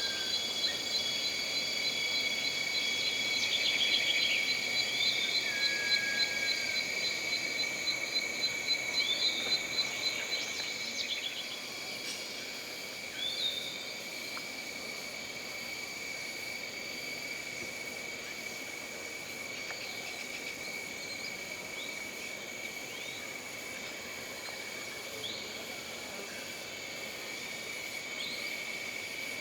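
Jungle ambience of insects and birds: several insects keep up steady high-pitched drones, one with a fast pulsing trill that stops about ten seconds in. Over them come scattered short bird chirps and whistles.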